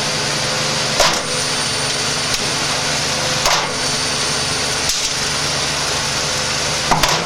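Washing machine drum spinning at high speed with potatoes inside, a steady loud hum with sharp knocks and cracks about a second in, around three and a half seconds, and near the end as the load bashes about in the drum.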